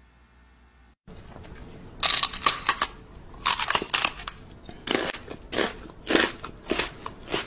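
A man making crunching, chewing noises with his mouth while faking biting off a dog's ear: clusters of sharp crunches starting about two seconds in and coming every half second or so.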